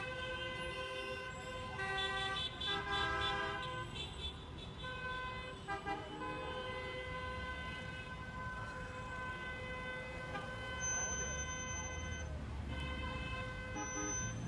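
Car horns and car alarms sounding as steady, held tones over street traffic; the tones shift pitch a few times in the first seconds, then hold.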